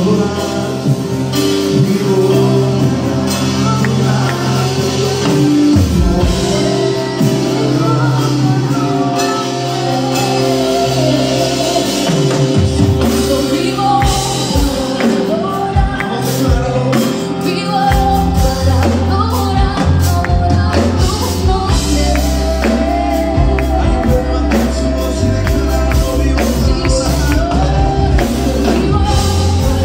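Live gospel worship band playing, with a woman singing lead over electric guitar and drums. The low end grows heavier about eighteen seconds in.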